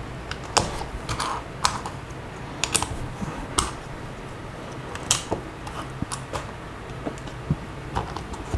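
Plastic LEGO bricks clicking as they are handled and snapped together: a dozen or so irregular sharp clicks.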